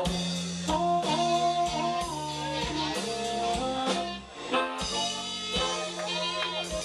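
Live electric blues band playing an instrumental passage: electric guitar and a harmonica blown into a hand-cupped microphone trade bent, sustained notes over drums and bass. Near the end one note bends up and back down.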